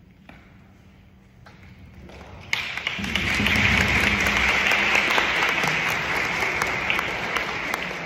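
Audience applause in a large hall, breaking out suddenly about two and a half seconds in after a hushed pause, then going on strongly as a dense patter of clapping. It greets the end of a chanted mantra song.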